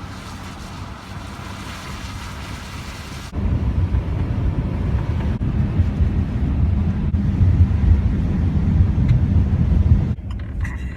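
Steady wind hiss for about three seconds, then an abrupt switch to a louder, steady low rumble of a vehicle driving, which runs until shortly before the end.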